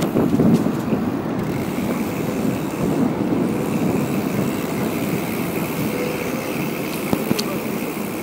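Steady wind noise buffeting the microphone of a camera carried on a moving bicycle, mixed with bicycle tyres rolling on asphalt. A faint thin whine joins about a second and a half in.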